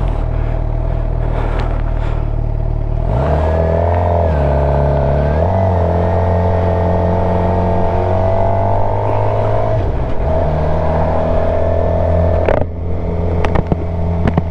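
Suzuki GSX-R750's inline-four engine running as the bike is ridden, its pitch rising about three seconds in, wavering for a couple of seconds and dropping about ten seconds in. A few sharp knocks come near the end.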